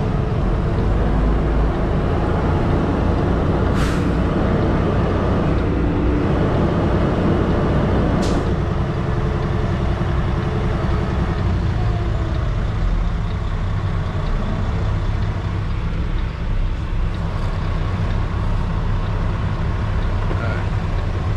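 Semi-truck diesel engine running at low speed, heard from inside the cab, with two brief air-brake hisses about four and eight seconds in.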